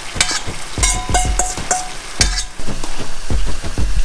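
Chicken and vegetables frying and sizzling in a large pan while they are stirred, with irregular knocks and short metallic clinks against the pan, some ringing briefly.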